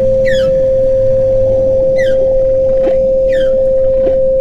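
A steady 528 Hz sine tone, the loudest sound, over recorded whale calls: falling whistles about every second and a half, with short rising sweeps lower down. A low hum under them fades out about two seconds in.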